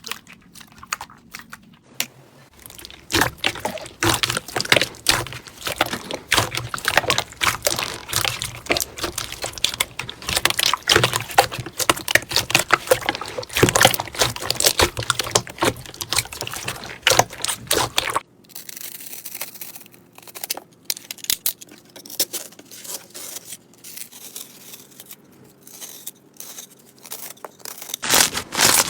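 Slime being squished, pressed and stretched by hand: dense sticky crackling and popping clicks. The sound thickens about two seconds in and turns quieter and sparser about eighteen seconds in.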